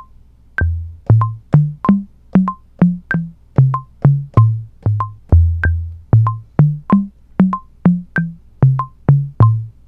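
Metronome clicking at about 95 BPM, a higher click marking each bar's first beat, while a low drum sound from a Native Instruments Maschine is played on the pads, pitched chromatically so that the notes step up and down in a short bass line from about half a second in.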